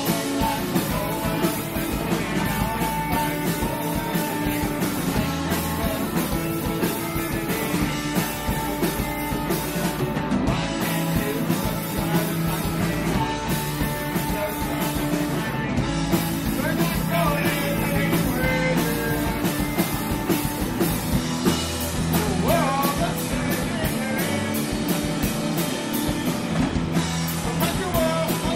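Rock band playing live with electric guitars and drums, running loud and continuous.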